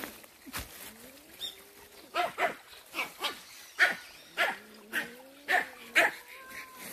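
Dog barking repeatedly, about ten short sharp barks starting about two seconds in, with a long wavering cry beneath them. The barking is at a cat that has fled up a tree.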